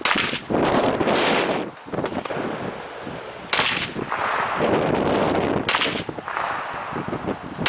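Slow, aimed single gunshots from a semi-automatic firearm: three sharp cracks a couple of seconds apart, near the start, about three and a half seconds in and near six seconds, each ringing briefly.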